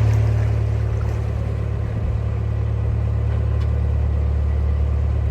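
Narrowboat engine running steadily while under way, a low, even drone.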